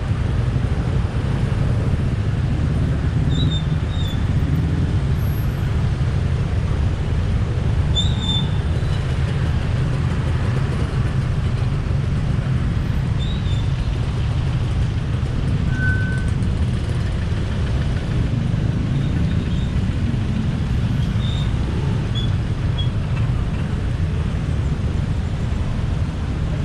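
Steady traffic noise of a busy city road: a constant low rumble of passing engines and tyres, with a few brief high squeaks and one short tone a little past the middle.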